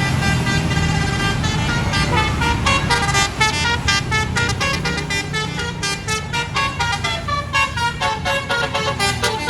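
Bus basuri telolet horn playing a quick tune of short, stepping notes over the low rumble of the bus's engine.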